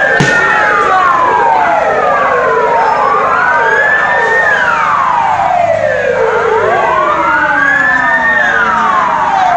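Police vehicle sirens wailing, more than one at a time, each slowly rising and then falling, the main wail peaking about every four seconds.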